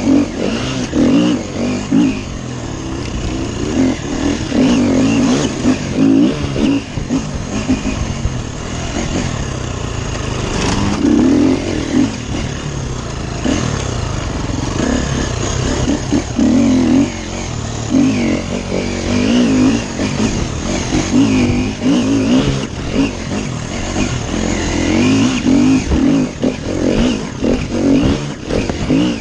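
Dirt bike engine under hard riding, its revs climbing and dropping over and over as the throttle is worked.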